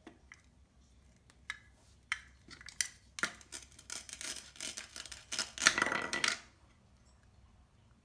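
Plastic play-food orange set down on a wooden cutting board with a few light knocks, then a plastic toy knife pulled through its Velcro seam: a crackly Velcro rip from about three seconds in, loudest near the end, stopping abruptly as the two halves come apart.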